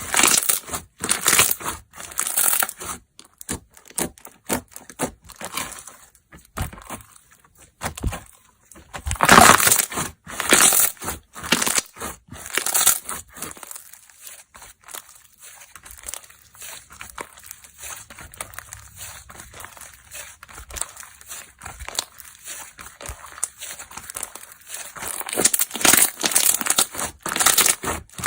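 Hands squishing, pressing and stretching slime: dense runs of small crackling pops and clicks. The runs are loudest near the start, around a third of the way in and near the end, with softer, sparser popping in between.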